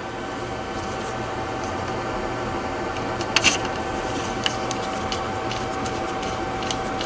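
Small clicks of a screwdriver and plastic parts as an opened wireless mouse is handled and reassembled, the loudest a quick double click about three and a half seconds in, over a steady mechanical hum with a faint even whine.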